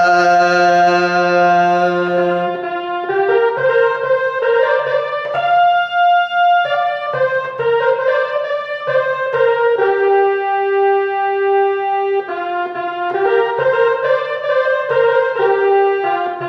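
Harmonium playing the instrumental melody between verses of a Nepali Thadi bhaka folk song, a line of reedy held notes that step from pitch to pitch, with a couple of longer sustained notes.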